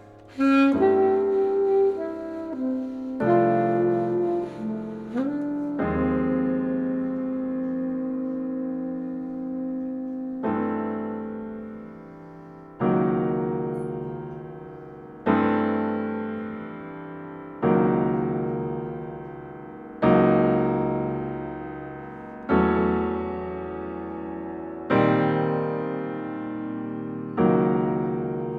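Chamber music: an alto saxophone plays a short melodic phrase with sliding notes, then a held chord gives way to piano chords struck about every two and a half seconds, each left to ring and fade.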